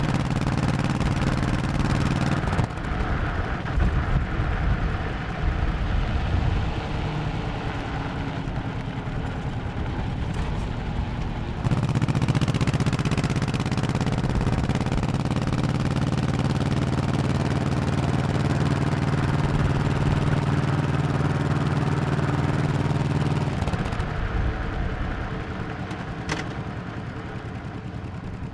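Honda 1100cc motorcycle engine under way. It pulls steadily, then runs off throttle and unevenly with a few sharp pops. About twelve seconds in the throttle opens and it runs at a strong, steady pitch, then eases off and fades near the end.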